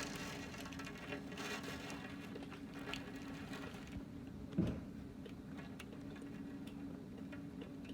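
Typhoon rain pattering and ticking against a double-glazed round window, with a steady low hum underneath and a single thump about halfway through.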